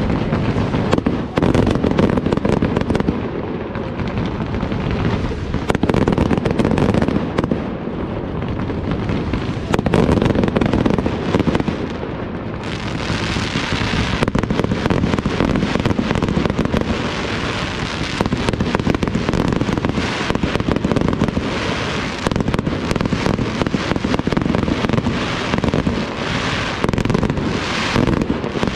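Professional fireworks display: a dense, continuous barrage of launches and bursts with a low rumble under it. From about halfway through there is more crackling and hissing.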